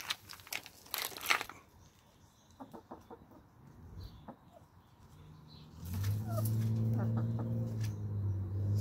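Hens scratching and pecking in loose soil with rustles and small ticks. About six seconds in, a low, steady, humming call from a hen sets in and holds, with a few short chirps over it.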